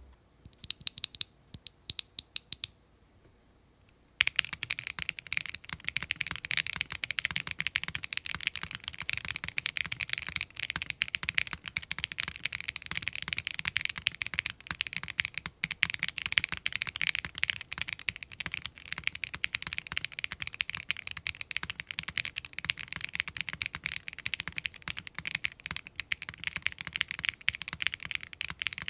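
Mechanical keyboard fitted with Akko Stellar Rose light linear switches, pre-lubed, in an aluminium-plate, top-mount board with no foam, being typed on; deep and clacky. A handful of separate keystrokes come first, then fast, continuous typing from about four seconds in.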